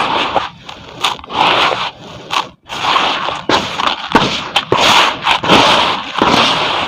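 Charcoal concrete crumbling in water: a run of irregular crackling and crunching bursts with sharp clicks, several of them in quick succession.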